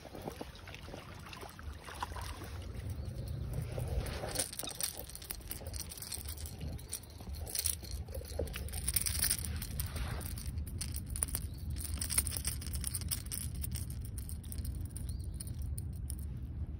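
Handling noise from landing a hooked fish by hand on the bank: irregular rustling and clicks from rod, line and rain jacket, denser from a few seconds in, over a low steady rumble.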